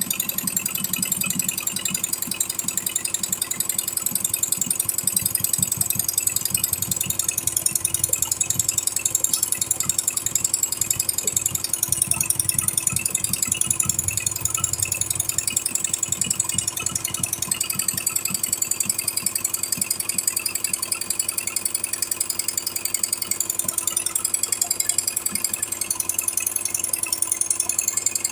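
Single-head, eight-needle computerized embroidery machine stitching: a fast, even mechanical clatter.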